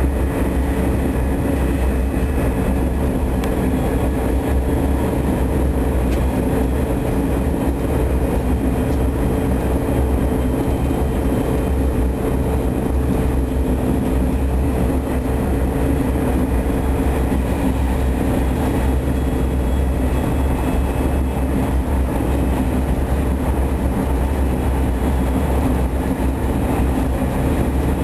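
Steady running noise of a passenger train at speed, heard from inside the carriage: an even low rumble with a faint steady hum over it and no distinct rail clicks.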